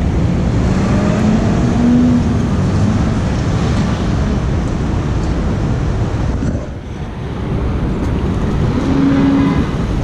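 Busy city intersection traffic: a steady low rumble of engines and tyres, with one engine rising in pitch about a second in as it pulls away, and a brief lull past the middle.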